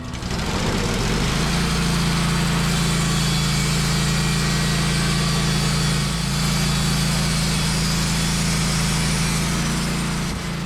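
Wood-Mizer LT15 portable sawmill's engine revving up over the first second or so, then running steadily at high speed, with a brief dip about six seconds in.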